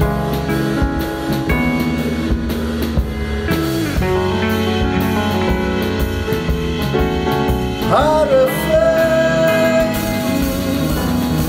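A rock band playing together: electric guitar, electric bass, keyboard and drum kit. A low note slides down about three and a half seconds in, and about eight seconds in a lead note swoops in and is held.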